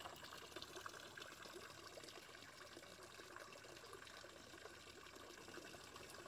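Near silence: a faint, steady hiss of background ambience with light crackle.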